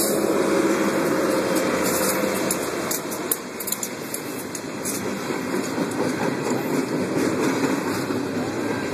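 CSX freight train passing close by: a diesel locomotive running, loudest in the first few seconds, then intermodal container cars rolling past. The steady rumble carries a run of clicking and rattling from the wheels and cars.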